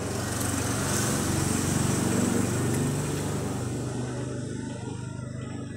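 A motor vehicle passing by: an engine hum and its noise swell to a peak about two seconds in, then fade away.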